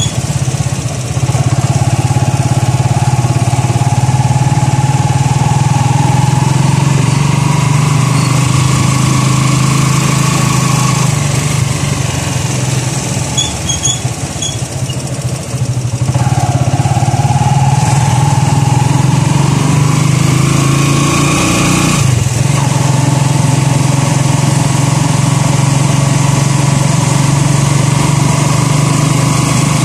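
Motorcycle engine of a Philippine tricycle running under way, its whine slowly climbing in pitch as it gathers speed, dropping back near the middle and climbing again, with an abrupt change about two-thirds of the way through.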